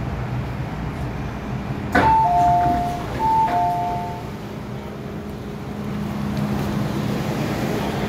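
MTR M-Train public-address chime: a two-note descending ding-dong played twice, about a second apart, with a click as it starts. Under it the train runs steadily, and a steady motor hum comes up near the end.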